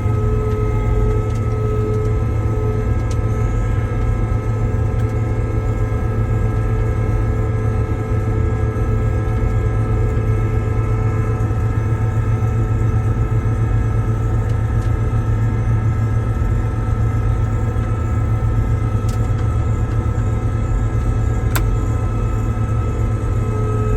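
John Deere 9860 STS combine running steadily at working speed: a constant low engine hum with several steady whines from the machine's drives layered over it.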